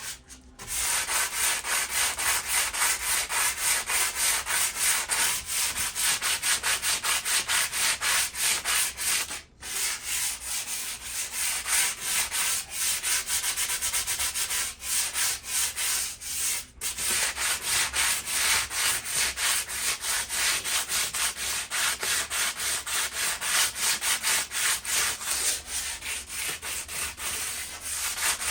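Sandpaper scrubbing surface rust off the edge of a metal patio table in quick back-and-forth strokes, about four or five a second. There are short pauses about a second in and twice more partway through.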